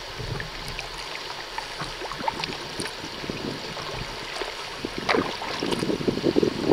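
River water lapping and trickling around a kayak, with many faint light clicks. A louder, choppy noise builds near the end.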